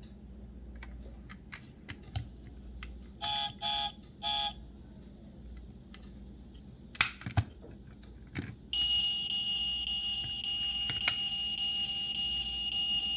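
Sound module of a 1:32 RMZ City Aston Martin Vantage GTE diecast model playing electronic sound effects through its small speaker. It gives three short beeps, then a few clicks from handling the model, then a long steady electronic tone for the last four seconds or so.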